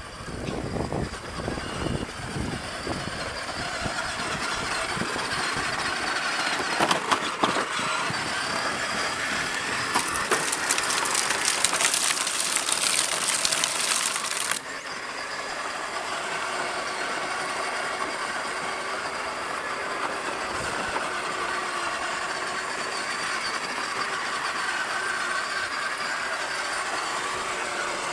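Kids' battery-powered ride-on toy ATV driving: its electric motor and gearbox whine steadily under the rattle and rumble of hard plastic wheels rolling over ground. A louder, hissier stretch about a third of the way in cuts off sharply about halfway through.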